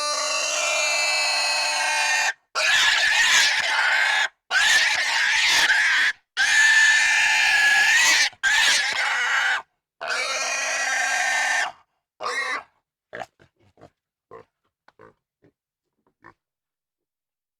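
Pig squealing: a run of loud, shrill squeals, each lasting one to two seconds, with short silent gaps between them. Several short, faint grunts follow near the end.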